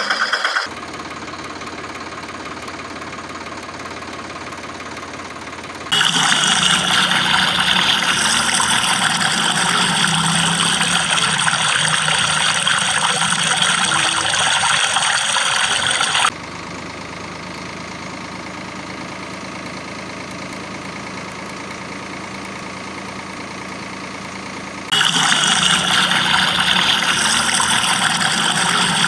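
Steady engine-like running sound. It jumps abruptly to a louder, brighter layer about 6 seconds in, drops back to a quieter, lower hum about 16 seconds in, and rises again near the end.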